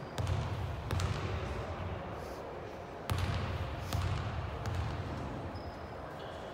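Basketball bouncing on a court floor: about five dribble thuds at uneven spacing, two close pairs and a single one, with a brief high squeak near the end.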